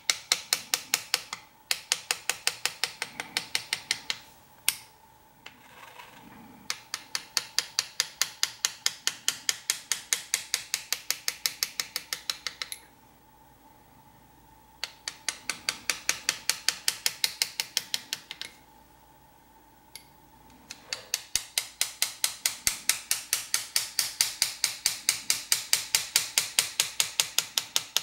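Hammer and chisel hand engraving: a small hammer tapping a hand chisel as it cuts lines into a metal plate, in rapid, even runs of light metallic taps, several a second. The tapping stops and starts four times, with pauses of about two seconds between runs.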